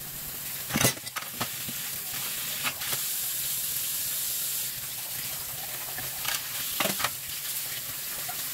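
Kitchen tap running in a steady stream onto dishes in the sink, with crockery clinking and knocking now and then as a mug and bowl are rinsed by hand, in clusters about a second in, near three seconds and near seven seconds.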